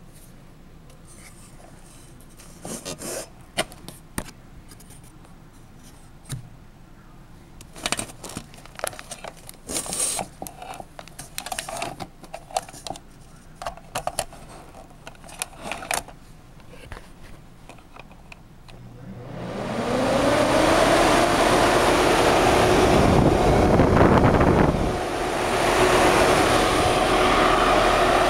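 Clicks and knocks of handling and plugging in a cord, then a Broan wall exhaust fan with its shroud fitted starts about two-thirds of the way through: its motor spins up with a rising whine and settles into a steady rush of air with a steady hum.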